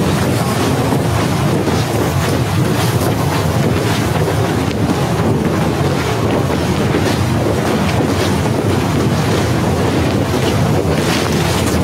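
Snowstorm wind buffeting the microphone: a loud, steady rush of gusting wind with a heavy low rumble.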